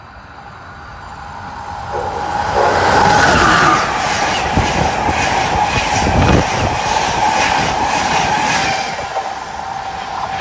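Amtrak passenger train of stainless-steel Amfleet coaches passing close by at high speed on an electrified line. The rush of wheels on rail swells over the first few seconds and holds loud, with a rapid clatter of wheels over the track and a steady whine, then begins to fade near the end.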